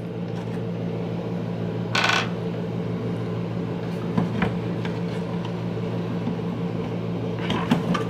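A small metal screw lands on a wooden tabletop with one short rattling clink about two seconds in, followed by a few faint clicks of plastic casing parts being handled. A steady low hum runs underneath throughout.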